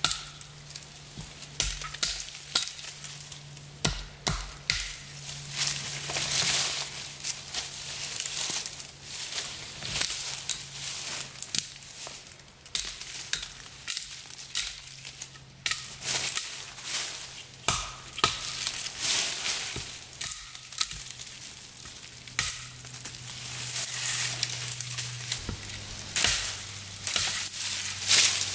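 Axe chopping into a small standing tree trunk in uneven, separate strikes, with the crackle of dry fallen leaves underfoot.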